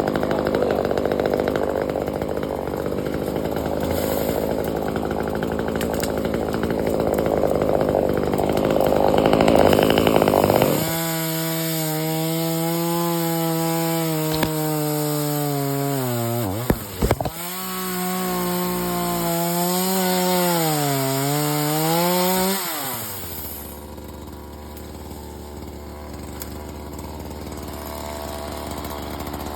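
Chainsaw cutting into wood with a dense, loud rasp for about the first ten seconds. It then runs free at high revs, its pitch dipping and rising, and drops to a low idle for the last several seconds.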